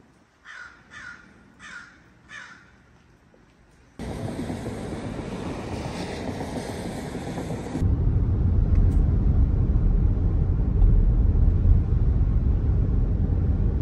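A bird calls four times in quick succession. After a sudden cut comes a steady hiss for about four seconds, and then the loud, steady low rumble of a car driving on a wet road, heard from inside the car.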